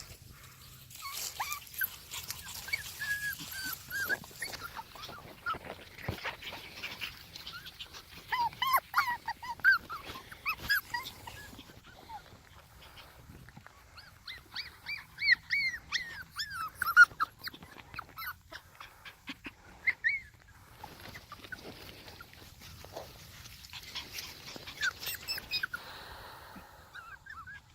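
A litter of young puppies squeaking and whimpering: many short, high-pitched squeals coming in clusters, with brief gaps between.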